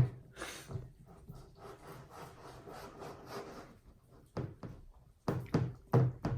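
Slime being handled, a faint, uneven rubbing and squishing, then several short sharp sounds in the last couple of seconds.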